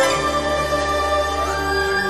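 Slow instrumental background music with held chords over a steady low bass note.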